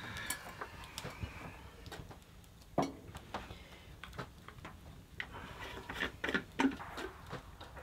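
Light clinks and knocks of a pot, lid and bottle being handled on top of a wood stove while coffee is being set up, with the loudest knocks a little under three seconds in and around six and a half seconds in.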